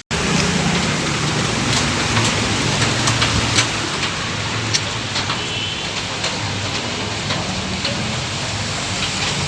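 Steady rain falling, a dense even hiss with single nearby drops striking sharply now and then.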